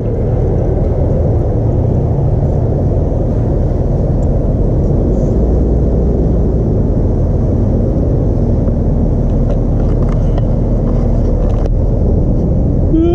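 Steady low rumble of boat engines as a motor yacht is towed along a canal by tugs.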